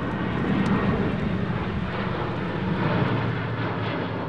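Boeing 777X's two GE9X turbofan engines running as it taxis, a steady jet hiss with a low hum underneath.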